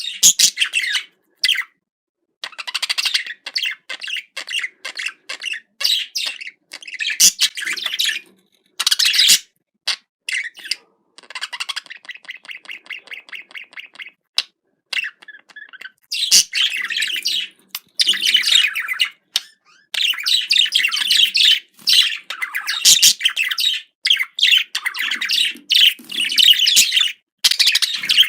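Budgerigar warbling and chattering in long bursts broken by short pauses, with a run of quick, even clicking notes about halfway through.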